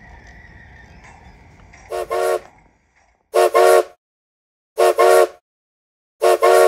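Train whistle sounding four pairs of short toots, about one and a half seconds apart, after a faint running rumble in the first two seconds from the model locomotive on the track.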